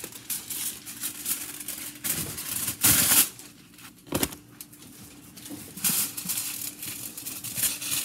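Aluminium foil being crumpled and rustled in several short bursts, the loudest about three seconds in.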